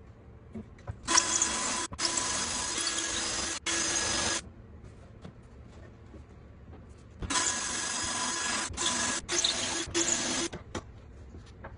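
Cordless drill with a pocket-hole bit boring into a board held in a pocket-hole jig. It runs in two spells of about three seconds each, each broken by short pauses.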